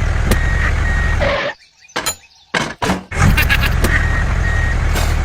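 A heavy vehicle's engine running with a low rumble while a high, steady beep sounds in short stretches. The engine cuts out for about a second and a half midway, leaving a few clicks, then starts again.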